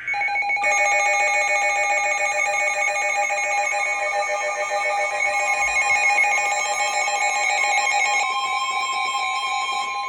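NOAA Weather Radio alert tones announcing a severe thunderstorm warning: a short data burst at the start, then a loud electronic alarm of several steady tones pulsing rapidly. About eight seconds in it changes to a steadier single tone.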